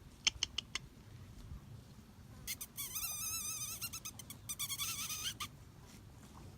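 A few quick clicks, then a high, wavering squeak held for nearly two seconds and a second, shorter squeak just after it. This is the squeaky noise made to draw the cows over.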